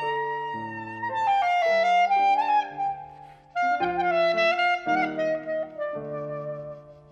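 Slow instrumental background music: a held melody line with slight pitch bends over chords that change about once a second, with a brief pause a little past the middle and a fade near the end.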